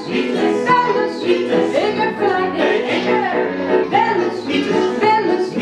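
Live children's song: acoustic guitar and keyboard playing together, with voices singing along.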